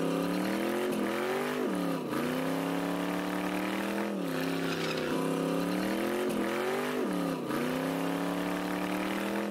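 A car doing a burnout: the engine is held at high revs while the spinning tire squeals. The engine pitch drops sharply and climbs back again about four times.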